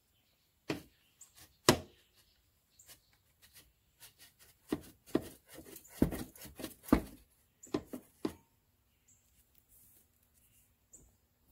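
Irregular metal knocks, clicks and scrapes as a slip-on muffler is twisted and worked off the exhaust head pipe of a Yamaha Raptor 700R quad. The loudest knock comes about two seconds in, and the sounds stop after about eight seconds, once the muffler is free.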